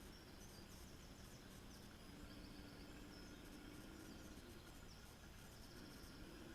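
Near silence: faint steady background noise with a faint wavering low hum.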